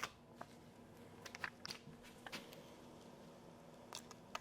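Faint, scattered light clicks and taps of small kitchen items being handled, a few close together about a second and a half in and a sharper one near the end.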